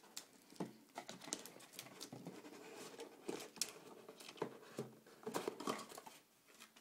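Clear plastic wrapping crinkling and rustling as it is handled and lifted out of a cardboard box, with scattered light taps and scrapes against the box.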